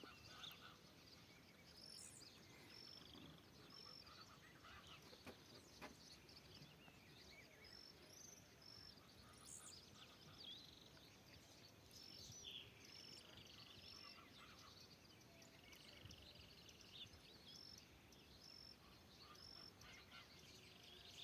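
Faint mixed birdsong in woodland: one bird repeats a short high note over and over, while other birds chirp and trill now and then.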